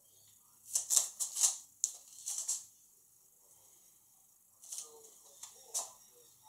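Paintbrush scrubbing thick paint onto a textured canvas: a quick run of about five short scratchy strokes, then three more a few seconds later.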